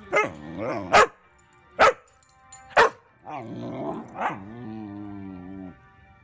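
A dog barking sharply four times, about a second apart, with a longer drawn-out call between the last barks, over background music.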